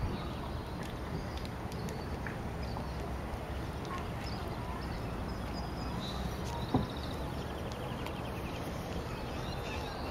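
Outdoor pasture ambience: a steady low rumble of wind on the microphone with faint high bird chirps, and one sharp knock about seven seconds in.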